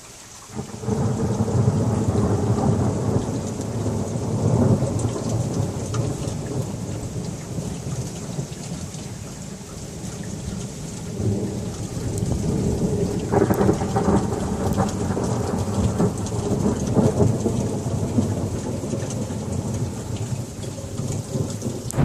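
Thunder rolling over steady rain: a long low rumble begins about a second in and swells again about halfway through, with a sharper crackling peal just after the middle.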